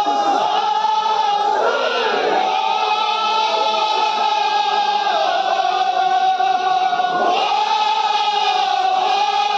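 A large crowd of men chanting a Kashmiri marsiya, a mourning lament, in unison. They sing in long held notes, with brief breaks between phrases about two, five and seven seconds in.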